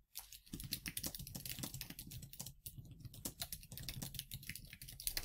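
Typing on a computer keyboard: a rapid run of keystrokes that starts about half a second in.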